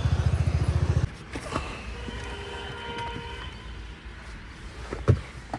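A motorbike engine running with a fast, even pulsing, which stops abruptly about a second in. After that the sound is much quieter, with faint steady tones, and there are two short knocks near the end.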